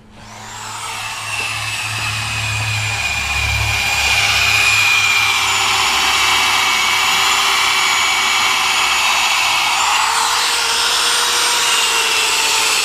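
A handheld power tool spinning up and running steadily, its noise building over the first few seconds; its whine shifts slightly higher about ten seconds in.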